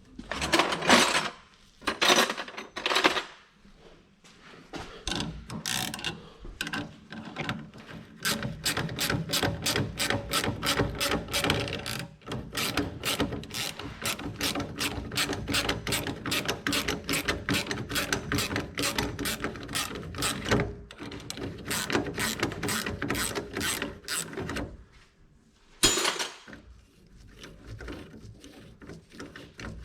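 Ratchet wrench clicking: a few short bursts, then a long even run of fast clicks, about five a second, that stops about four seconds before the end.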